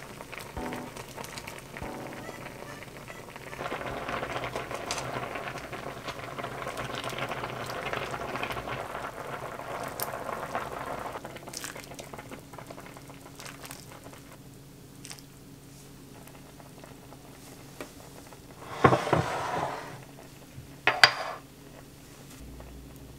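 A pot of oyster noodle soup bubbling at a boil. Late on there is a louder noisy sound lasting about a second, then a short sharp clatter of dishware.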